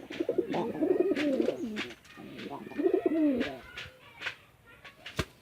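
Domestic pigeons cooing in two bouts of wavering calls, the first about two seconds long and the second about one, with scattered short clicks and one sharp knock near the end.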